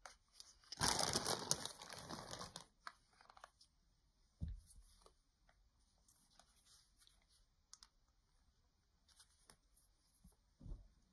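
Loose clear plastic packaging crinkling for about two seconds, then lighter scattered crinkles, with two soft thumps, one about four seconds in and one near the end.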